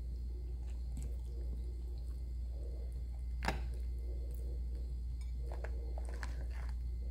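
Close-up eating sounds: wet chewing and soft clicks of fingers picking at food, with one sharper click about halfway through and a run of clicks near the end, over a steady low hum.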